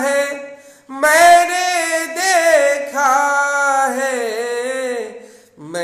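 A man singing a ghazal solo: after a short breath, one long drawn-out phrase with wavering, ornamented held notes that dies away near the end, before the next phrase begins.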